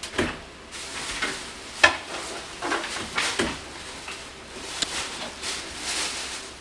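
Someone rummaging in a clothes closet: irregular rustling and clattering of clothes and things being moved about, with a sharp knock just under two seconds in.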